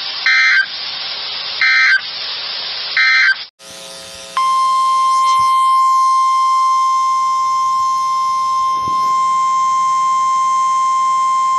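NOAA Weather Radio alert signalling over a hiss of radio static: three short, identical digital data bursts about a second and a half apart, the EAS end-of-message code. Then, after a brief break, the steady single-pitch 1050 Hz warning alarm tone sounds continuously, announcing a new warning.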